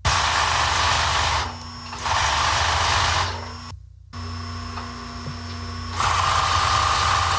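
Sewing machine running in bursts as quilt strips are stitched onto a polyester backing, starting and stopping several times with quieter pauses between runs.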